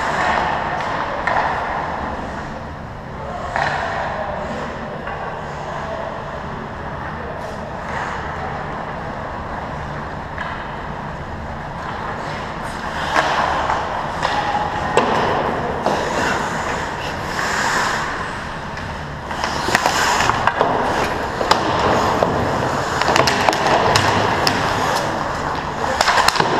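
Ice hockey play: skate blades scraping and carving on the ice, with sharp clacks of sticks and puck. It gets louder from about halfway through as the skaters come in toward the net.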